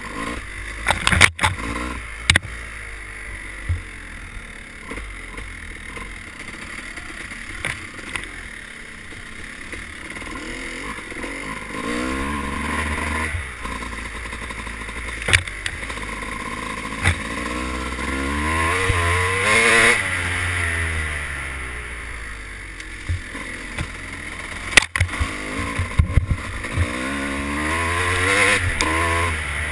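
Dirt bike engine heard from the rider's helmet on a trail ride, the revs rising and falling with the throttle, climbing highest about two-thirds of the way through and again near the end. A few sharp knocks cut through.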